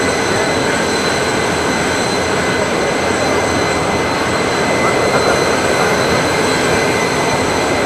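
Steady jet turbine noise on an airport apron: an even rushing sound with several high, constant whining tones running through it, unchanging throughout.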